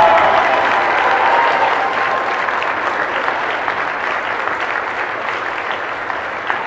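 Crowd applauding, with steady dense clapping that slowly eases off.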